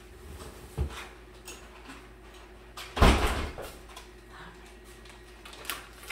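A refrigerator door shutting with one loud thump about three seconds in, after a lighter knock near the start.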